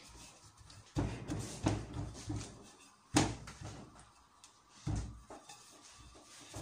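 Wooden rolling pin rolling out yeast dough on a floured stainless-steel counter, with several sudden knocks of the pin on the metal, the loudest a little after three seconds in.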